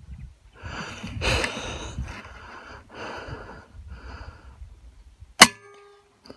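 A single shot from a 5.5 mm (.22) PCP air rifle: one sharp, loud crack about five seconds in, followed by a brief ringing tone. Softer hissing noises come and go before it.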